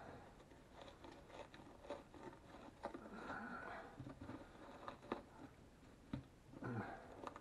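Faint crunching and scraping of a fillet knife cutting through a scaly mooneye, with scattered small ticks as the blade works through skin and scales; the knife is one the filleter thinks may be dull.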